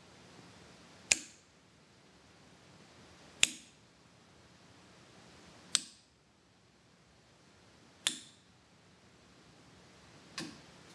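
Relays on the drink machine's control board clicking one at a time as a test program steps through the valve channels, a sharp click about every two and a half seconds, five in all, the last a little softer.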